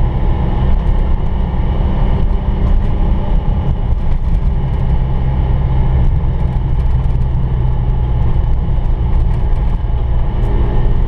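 Citroën 2CV's air-cooled flat-twin engine running steadily as the car drives along, heard from inside the car with road noise.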